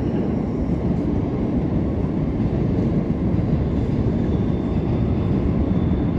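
Freight train passing, its wagons making a steady, loud low noise with no break.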